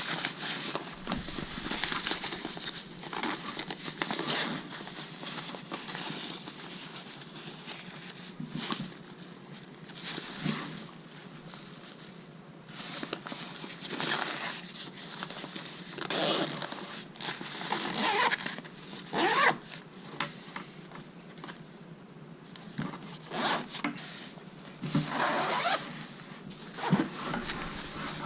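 Zippers on a Minaal 2.0 carry-on bag being pulled open and shut, many zip strokes at irregular intervals.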